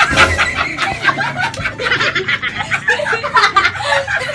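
A group of young people laughing and shrieking together in short, overlapping bursts.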